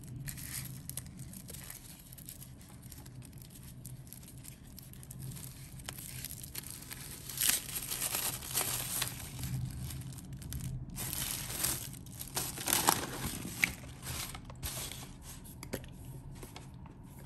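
White tissue paper crinkling and tearing as hands pull it off a glass perfume bottle, in irregular rustles with louder bursts about halfway through and again a little later.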